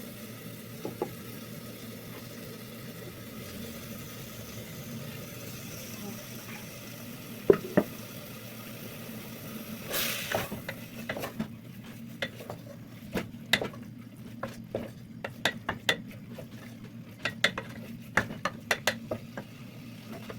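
Meat frying in a pan with a steady sizzle, stirred with a utensil. From about halfway on there are many sharp clicks and knocks of the utensil against the pan.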